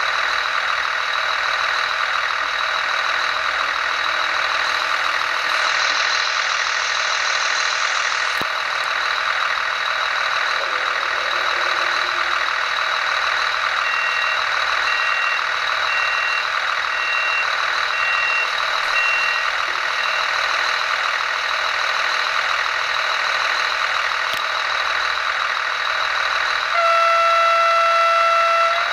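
Sound decoder of a Märklin H0 LINT 41 diesel railcar model playing a steady diesel idling sound through its small speaker. About halfway through a run of about six evenly spaced beeps sounds, and near the end a loud horn blast of about two seconds.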